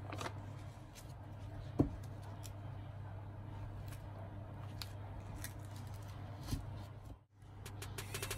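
Small clicks and rustles of gloved hands handling a paper note and an opened phone with a burnt battery, over a steady low hum. One sharper click comes about two seconds in, and a knock about six and a half seconds in.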